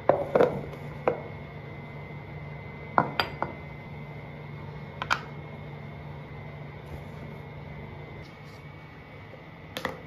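Plastic tubs, jars and a glass bottle being set down on a hard bathroom countertop: a cluster of clacks at the start, then single knocks about one, three and five seconds in, and a double knock near the end. A steady low hum runs underneath.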